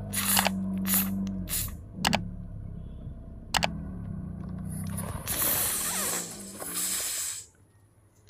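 A car tyre crushes a drink carton in a series of sharp cracks over the steady hum of the car's engine. About five seconds in, a plastic bottle of iced tea is crushed under the tyre and its liquid sprays out in a loud hissing rush for about two seconds, which stops suddenly.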